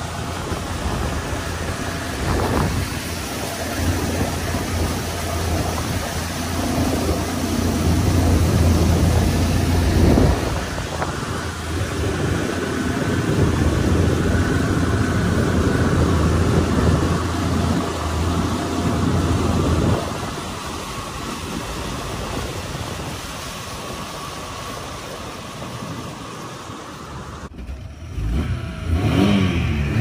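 Small boat's outboard motor running steadily as the boat cruises, with water and wind noise. It gets quieter about two-thirds of the way through.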